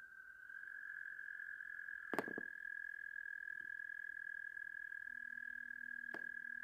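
Night chorus of frogs and toads: a steady high-pitched trill that grows a little louder about half a second in. Sharp pops cut through it, a close pair about two seconds in and another near the end, with a lower steady tone joining shortly before the last pop.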